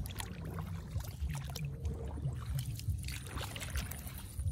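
Light sloshing and trickling of shallow water in a muddy rice-field ditch, over a steady low rumble, with scattered small knocks.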